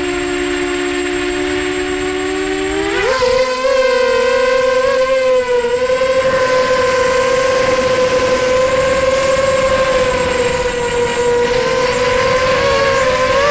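Racing mini quadcopter's electric motors whining: a steady two-tone hum that climbs sharply in pitch about three seconds in as the throttle comes up for takeoff, then holds a high whine with small wavers in pitch during the low, fast flight.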